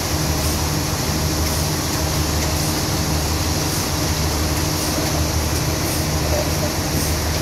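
Toyota 3.5-tonne forklift's engine running with a steady drone as the forklift maneuvers.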